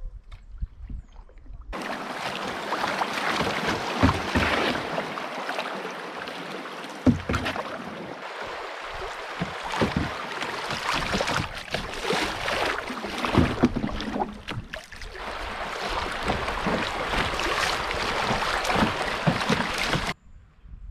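Canoe moving on the river, with a loud rush of water and sharper splashes or knocks every few seconds. The sound cuts in about two seconds in and cuts off suddenly near the end.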